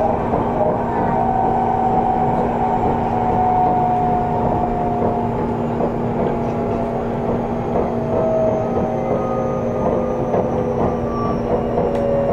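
Running sound inside a Seibu 30000 series electric train: the motor whine is falling slowly in pitch as the train slows, with wheels clicking over rail joints. The car's air conditioning hums steadily underneath.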